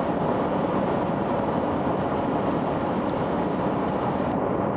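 Steady road and engine noise inside a car's cabin at highway speed.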